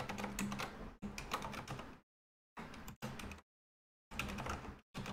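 Typing on a computer keyboard: runs of quick key clicks, broken by short stretches of dead silence between bursts.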